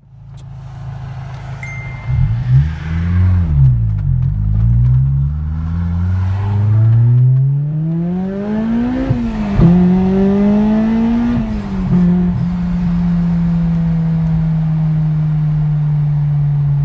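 Car engine accelerating under load, its pitch climbing for several seconds, then dropping sharply at a gear change about nine seconds in and again near twelve seconds. It then holds a steady pitch while cruising.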